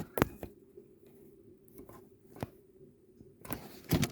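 Faulty USB wall socket crackling, with a sharp click about a quarter-second in as a plug goes into it, then scattered faint crackles over a low steady hum and a cluster of louder crackles near the end. The socket itself is faulty, not the wiring, and needs replacing.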